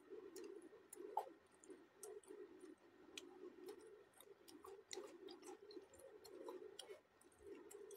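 Faint close-up chewing of flatbread and curry: wet mouth sounds with many short, irregular clicks and smacks.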